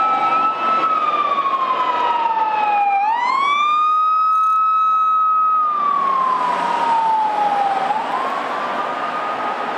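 Emergency vehicle siren in a slow wail, its pitch rising, holding and falling in long sweeps about five seconds apart. From about six seconds in, a steady rush of traffic noise joins it.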